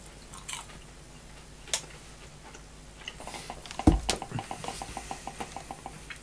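Handling noise on a clip-on microphone: a thump about four seconds in, then a run of quick, evenly spaced ticks, about seven a second.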